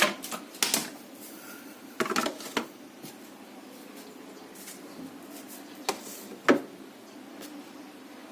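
Whirlpool refrigerator being handled: scattered sharp clicks and knocks over a steady low hum, the loudest knock about six and a half seconds in.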